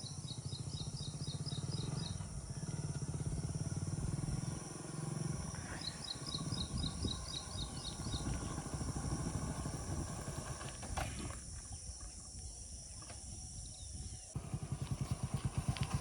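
A person imitating a motorcycle engine with their mouth, a throaty, rapidly pulsing growl for a bike starting and running, recorded as a dubbed sound effect. It weakens in the middle and picks up again near the end.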